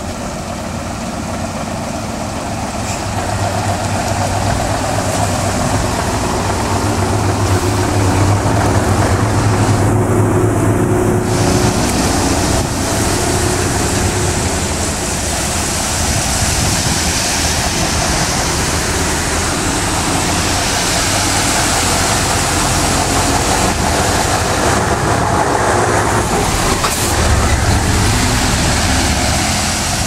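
Heavy-haul tractor-trailer loaded with a railway car, its diesel engine running as it crawls past, with a steady hiss of tyres on the wet road. The engine hum grows louder over the first several seconds and swells again near the end.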